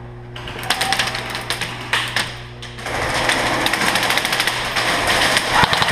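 Airsoft electric guns firing rapid full-auto bursts, a fast mechanical rattle that starts about half a second in, dips briefly, then runs almost without a break from about three seconds in.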